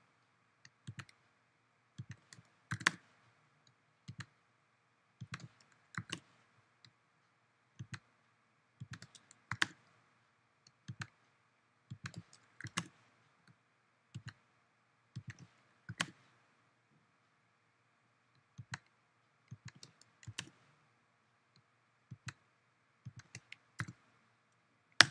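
Computer mouse buttons and keyboard keys clicking: scattered sharp clicks, single or in quick pairs, every second or two.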